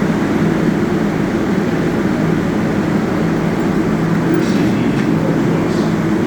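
Subway train in an underground station, a loud steady hum of motors and equipment with a few faint high clicks in the second half.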